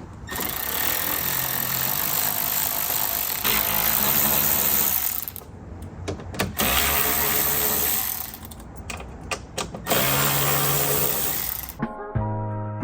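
Cordless power driver running in three stretches of a few seconds each, with short pauses between them, backing out the Torx screws along the top of a car bumper.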